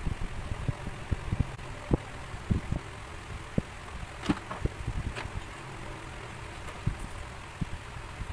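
Handling noise of shaped PVC pieces being turned over and set on a work table: irregular soft knocks and a few sharper plastic clicks, over a steady low hum.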